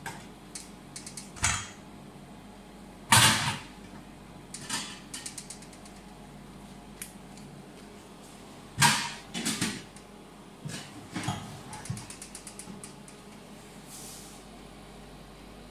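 Handling noises while topping raw pizzas with ham and mushrooms: a few loud rustling bursts, the loudest about three seconds in and about nine seconds in, and runs of quick clicks, over a steady low hum.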